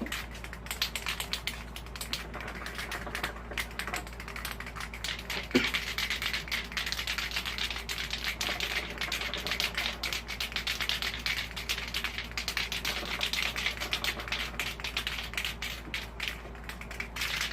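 Aerosol spray paint can being shaken, its mixing ball rattling in quick, irregular clicks with a faint hiss behind them.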